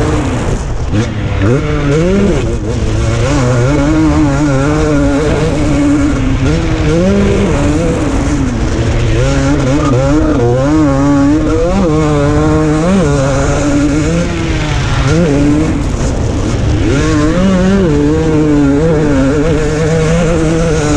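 KTM 250 SX single-cylinder two-stroke motocross engine under hard riding, revving up and dropping off again and again as the throttle is worked through bends and jumps. It is heard from on board the bike.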